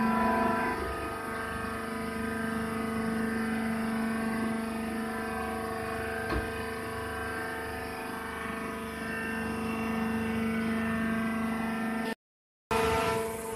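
Hydraulic baler's motor and pump running with a steady hum holding a few fixed tones. One light click about six seconds in, and the sound cuts out briefly near the end.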